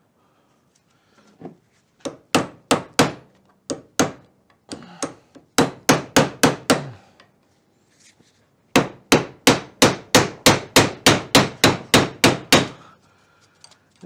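Hammer blows on a steel punch, driving a stubborn roll pin out of a VW Beetle pedal shaft clamped in a vise. It starts with an uneven run of about a dozen sharp metallic strikes, pauses briefly, then goes to a fast, even run of about four blows a second. The pin resists and its end is mushrooming under the punch.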